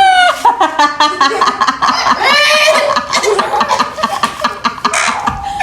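Excited voices with laughter and giggling.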